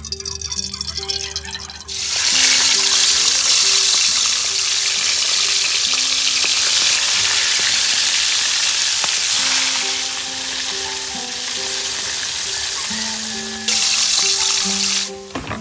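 Cooking oil trickles into a hot wok, then about two seconds in whole fish hit the oil and fry with a loud, steady sizzle. The sizzle eases a little, then jumps louder again near the end as another fish goes in, and cuts off just before the end.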